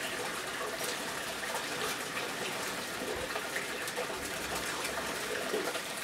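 Steady rush of running water, with faint small ticks scattered over it.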